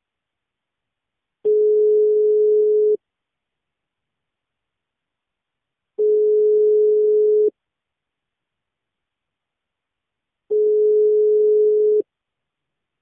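Telephone ringback tone heard down the caller's line: a steady single tone lasting about a second and a half, three times, with three-second gaps. This is the Spanish ringing cadence, the sign that the called phone is ringing and has not yet been answered.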